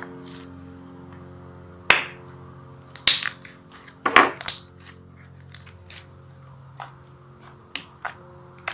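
White homemade slime squeezed and kneaded by hand, giving off a dozen or so sharp, irregular clicking pops as air pockets burst. Soft instrumental background music plays under it.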